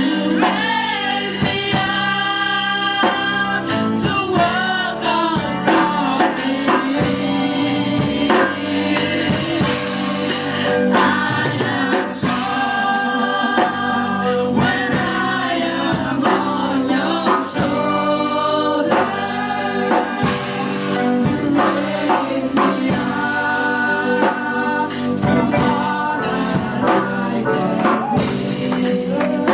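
Gospel choir singing a worship song, with instrumental accompaniment and percussion keeping a steady beat.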